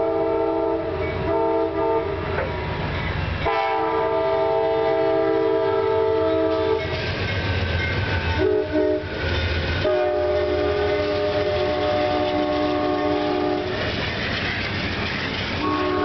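Amtrak P42DC diesel locomotive sounding its multi-tone air horn in long and short blasts as the train passes. The horn drops in pitch once the locomotive has gone by. Under the horn is the rumble of the diesel and the train rolling past.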